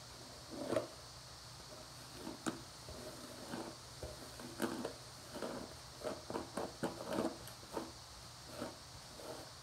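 Hairbrush strokes pulled through wet, tangled hair: a run of short brushing swishes that comes more often, several a second, past the middle.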